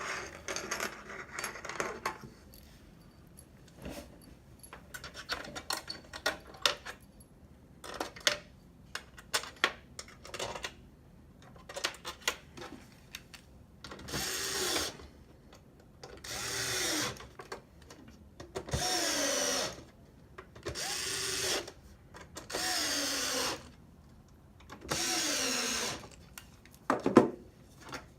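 Small electric screwdriver driving the case screws back into an Xbox One S, six short runs of about a second each, the motor's pitch falling as each screw tightens. Before them, light clicks of screws and plastic parts being handled, and a sharp click near the end.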